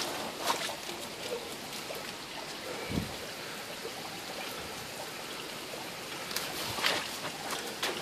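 Water running and trickling from a partly frozen waterfall over the ice: a steady, even rush. A few short sharp sounds come near the start and near the end, and a low thump comes about three seconds in.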